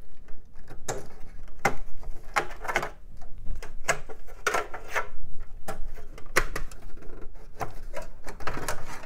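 Irregular plastic clicks, knocks and rattles of drive cables and connectors being unplugged and pulled clear inside a desktop computer case, a few sharp clicks a second.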